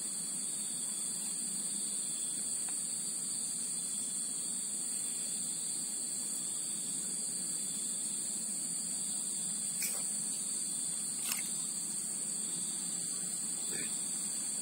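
A steady, high-pitched chorus of insects, constant throughout, with two brief clicks near the end.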